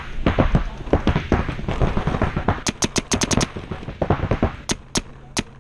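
Paintball markers firing in rapid strings of sharp pops, with a tight run of about seven snaps around the middle and a few single snaps near the end.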